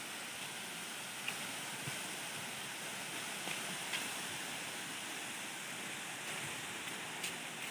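Steady rushing hiss of a 30-metre waterfall, the water falling onto the rocks below, with a few faint clicks.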